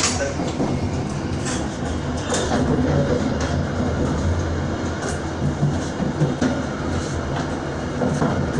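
Passenger train running along the track, heard from the rear car: a steady low rumble of wheels on rail, broken by irregular sharp clacks as the wheels pass over rail joints.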